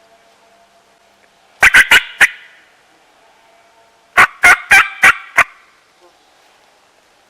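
A wild turkey tom gobbling twice, each gobble a loud rapid rattle, the second a little longer than the first.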